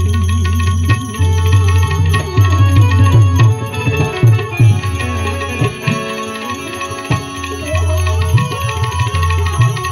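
Instrumental devotional bhajan music: tabla played with deep bass strokes whose pitch slides up and down, over a harmonium's sustained tones.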